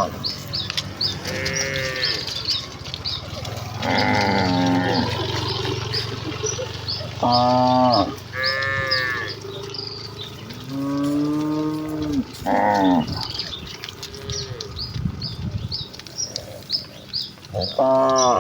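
A herd of village cattle mooing again and again: several long calls, some overlapping and a few higher-pitched, with small birds chirping steadily in the background.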